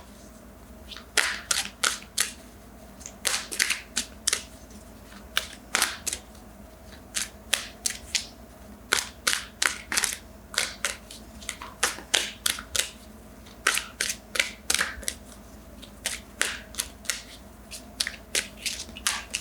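A deck of oracle cards being shuffled by hand: groups of sharp card snaps and slaps, a few in quick succession, repeating every second or so.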